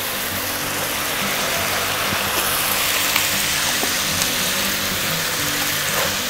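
Spicy Korean stir-fried pork sizzling steadily in a frying pan on the burner as its sauce cooks down.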